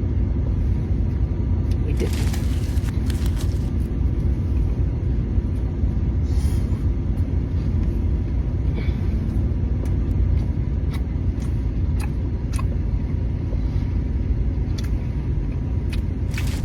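Steady low rumble, with a few brief crackling, smacking sounds of a dipped grilled cheese sandwich being bitten and eaten.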